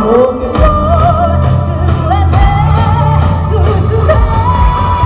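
Live pop music with a sung vocal melody over a steady bass line and regular drum hits.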